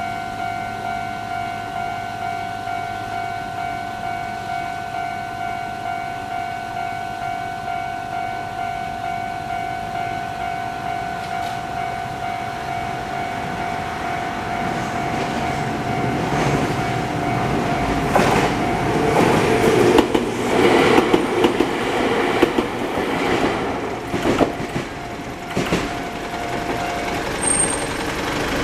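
Japanese railway level crossing's standard electronic warning bell ringing steadily at about two strokes a second. A train passes over the crossing from about halfway, its wheels clacking over the rail joints, and the bell cuts off near the end.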